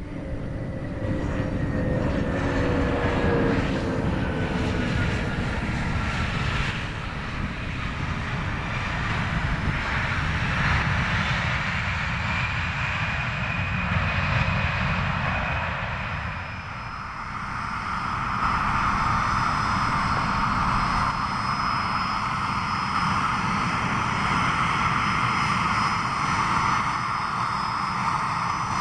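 Bombardier CRJ regional jet's twin rear-mounted turbofan engines running. In the first few seconds its whine glides down in pitch as it moves past. From about halfway through it settles into a steady high whine over a low rumble.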